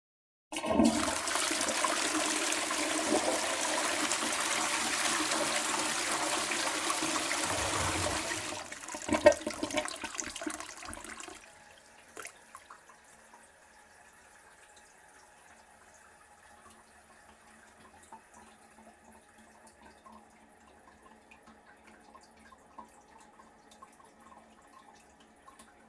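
Toilet flushing: a sudden rush of water lasts about eight seconds, then turns into gurgling as the bowl drains, with one sharp gulp about nine seconds in. After that, water runs faintly and steadily as the cistern refills.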